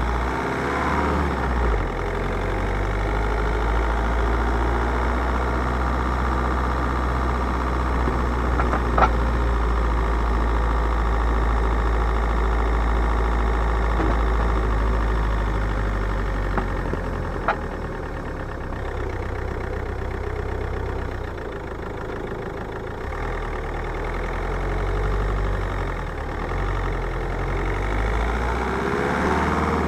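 2008 Mk4 Ford Mondeo with its engine running steadily and a sharp metallic clank from the front suspension about nine seconds in, then a lighter knock later on. The clank's cause is unknown: nothing looks loose with the wheels off.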